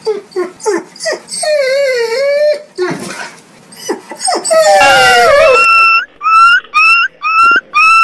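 Husky whining and howling: short wavering cries and one longer howl that rises and falls in pitch. From about six seconds in, a puppy crying in a regular series of high, rising yelps, about two a second.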